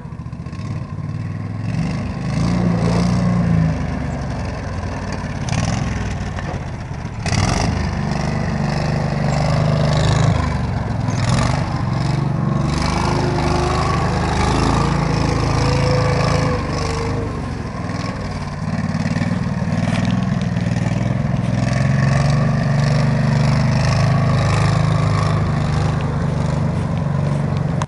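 Coot ATV's small engine running steadily as the machine drives over the forest floor, its note rising and falling with the throttle. There is a brief bump about seven seconds in.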